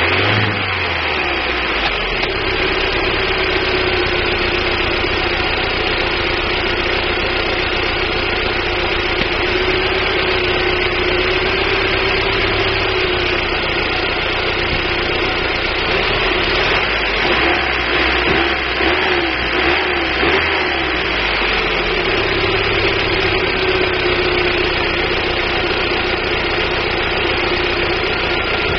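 1999 Daewoo Nubira's 2.0 L DOHC four-cylinder engine idling, the idle wavering unevenly for a few seconds past the middle. It is being checked for a misfire that the owner thinks may come from a weak spark from the DIS ignition coil, though he is not sure.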